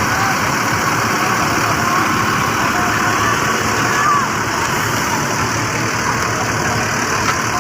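Bus engine running steadily at idle, with faint voices in the background.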